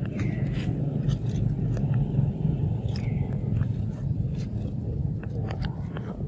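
Crunching and scraping footsteps on dry leaf litter, many short irregular clicks over a steady low rumble. A faint high call comes near the start and again about three seconds in.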